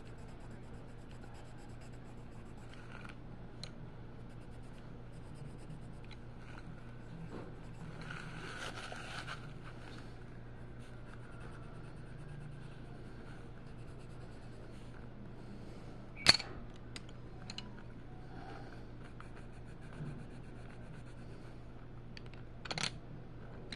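Colored pencil scratching softly on a coloring-book page as it is shaded, over a steady low hum. A sharp click about two-thirds of the way through, and another near the end as pencils in the stack are handled.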